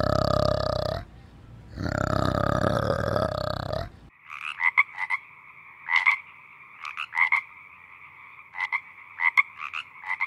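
Two long, loud, pitched animal calls from an orangutan, with a short gap between them. From about four seconds in, a frog croaks in short, sharp calls that come in quick clusters of two or three.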